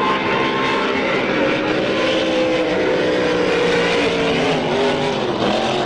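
Supercharged racing powerboat engines running hard at high revs, a steady loud drone whose main pitch slides down over the last couple of seconds as a boat goes past.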